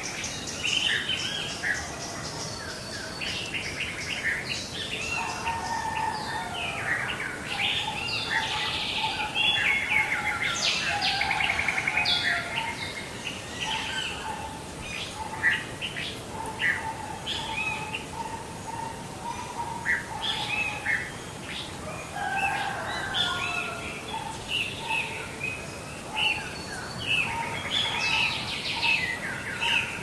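Several birds singing and chirping at once in a dense, overlapping chorus of short calls and trills, busiest about a third of the way in.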